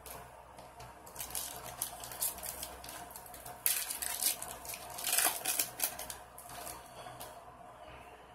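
Shiny foil wrapper of a 2006 Bowman football card pack crinkling and tearing as it is ripped open by hand. The rustling comes in a string of crackles, loudest about four and five seconds in.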